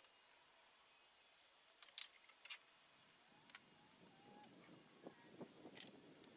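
Near silence, broken by a few faint, sharp clicks and taps.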